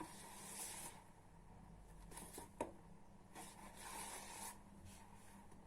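Near silence: faint room tone with a few soft swishes and one light click about two and a half seconds in.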